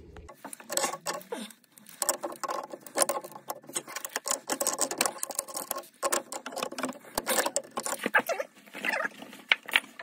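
Irregular metal clicks, knocks and scraping as grips work on a brass compression isolation valve on copper pipe.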